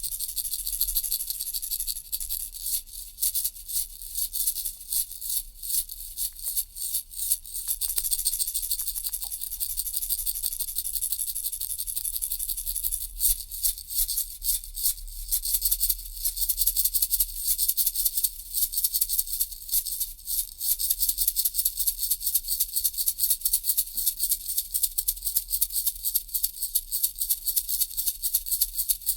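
Baby rattle being shaken: a dry, high rattling of small beads, alternating between runs of quick, evenly spaced shakes and stretches of smoother continuous rattling.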